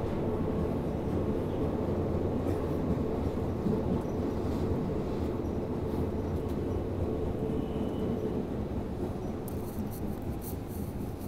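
Tokyo Metro Yurakucho Line subway train running through the tunnel, heard from inside the car: a steady low rumble from the wheels and running gear, with a steady tone that fades out about eight seconds in.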